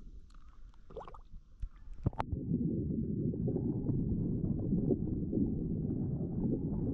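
Muffled rumbling and gurgling of river water heard through an underwater camera as a smallmouth bass is released by hand. A few splashes and a sharp knock come in the first two seconds before the steady underwater rumble takes over.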